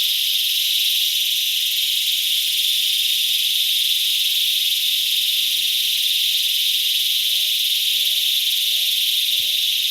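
Chorus of cicadas buzzing: a loud, steady, high-pitched drone without a break. Faintly beneath it, in the second half, a short call repeats about twice a second.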